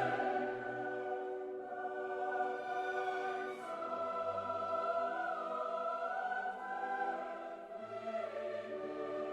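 Background music with sustained choir-like voices over orchestral chords.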